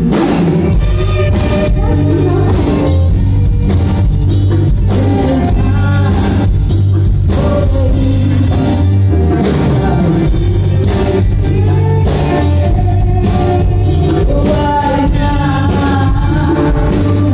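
Live band playing amplified music with a singer's voice, over a heavy bass line and a steady drum beat.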